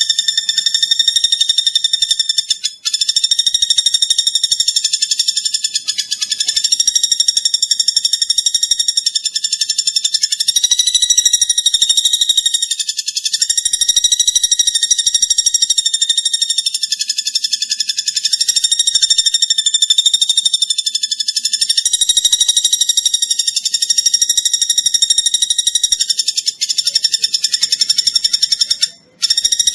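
Platuk bawang bird's song: one long, very rapid, high-pitched trill that runs almost without pause, briefly breaking about three seconds in and twice near the end.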